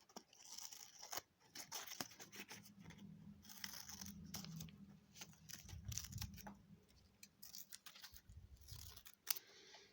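Scissors cutting thin brown packing paper: a run of small snips and paper rustles, with the odd tap of handling.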